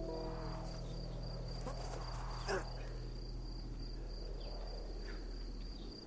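Crickets trilling in one high, continuous tone over a low steady hum that stops near the end. A brief falling sound stands out about two and a half seconds in.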